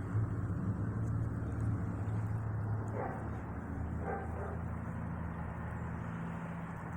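Small propeller plane's engine droning overhead, its pitch dropping slightly partway through. Two short dog barks about three and four seconds in.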